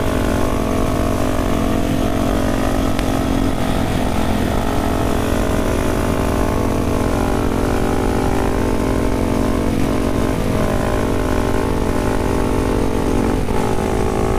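Motorcycle engines running at a steady cruising speed with a constant drone and only slight shifts in throttle, under steady wind noise on the microphone.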